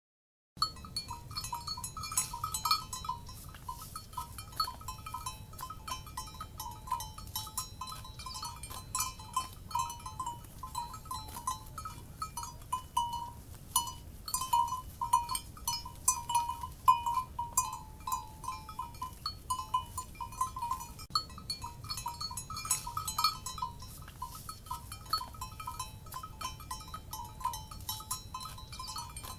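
Cowbells on grazing livestock clanking irregularly, with many short ringing notes of the same couple of pitches over a low steady background noise. The sound cuts in from silence about half a second in.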